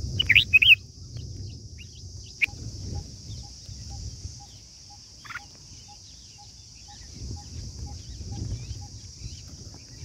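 Red-whiskered bulbul chirps at the nest: a quick burst of loud chirps in the first second, a sharp click about two and a half seconds in, then a single short call about five seconds in. A faint even pip, about two a second, runs through the middle, over a steady high hiss and a low rumble.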